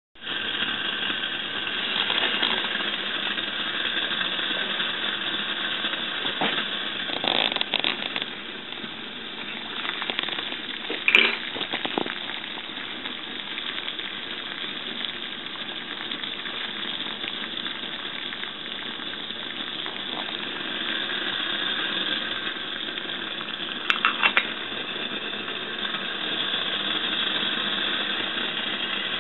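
Water boiling in a Snow Peak 600 titanium pot over a burning alcohol stove: a steady bubbling hiss, broken by a few brief clicks and knocks, the loudest about eleven seconds in.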